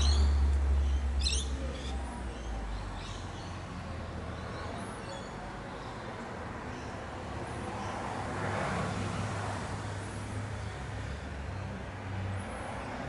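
Outdoor background: a low rumble, loudest in the first two seconds and then easing, with a couple of short bird chirps about a second in.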